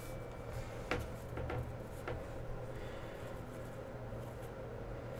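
Upper Deck hockey trading cards being handled: a faint rustle with a few light clicks as cards are picked up off a table mat and slid through a hand-held stack.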